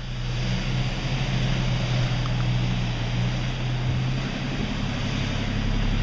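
Car engine running with a low steady hum, under a loud, steady rushing wash.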